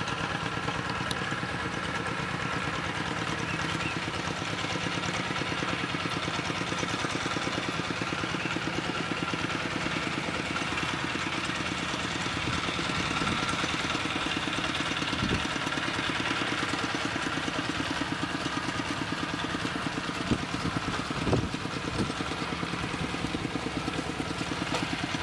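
A small engine running steadily with a fast, even beat, with a few short knocks in the second half.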